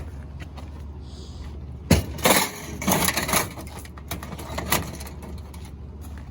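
Scrap metal being handled from a curbside junk pile: a sharp clank about two seconds in, then a run of rattling clatter, and another knock near the end, over a steady low hum.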